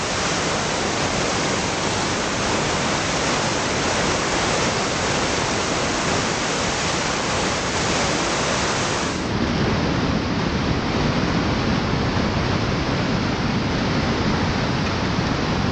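Steady rushing of a big whitewater rapid at high water, a dense churning noise across all pitches. About halfway through the sound turns deeper, with more low rumble.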